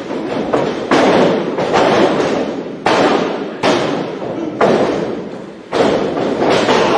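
Wrestlers' bodies and feet hitting the boards of a wrestling ring: a series of heavy thuds, about one a second, each ringing out briefly through the hall.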